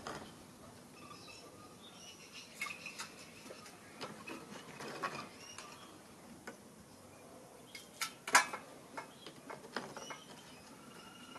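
A steel skimmer scraping and clinking against the crucible as dross is skimmed off molten brass, with scattered light metal taps and two sharp clinks about eight seconds in.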